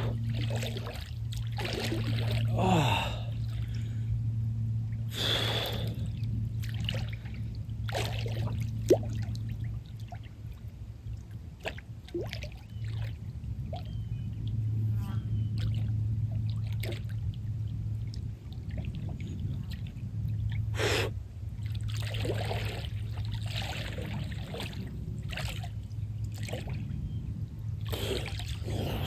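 A person wading and swimming in a mountain tarn. Water splashes and sloshes irregularly, with sharp gasping breaths, over a steady low hum.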